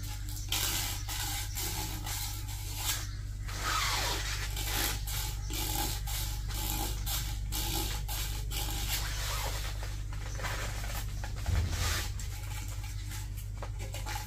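Hands working inside a pond floor drain fitting: irregular scraping, rubbing and clicking of parts being handled, over a steady low hum.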